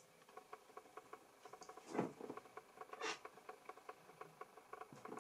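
Faint stifled laughter: two short breathy bursts through a hand held over the mouth, about two and three seconds in, over faint quick ticking.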